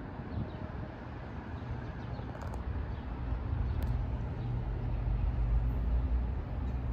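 Low rumble of an approaching NJ Transit commuter train, growing steadily louder from about two seconds in.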